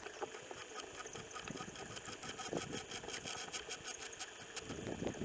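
An engine idling steadily, with a fast run of high-pitched ticks over it.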